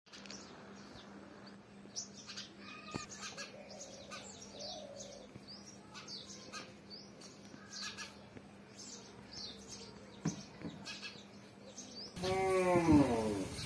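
House sparrows chirping repeatedly in short, high notes around a nest box, over a faint steady hum. About 12 s in, a much louder pitched voice cuts in.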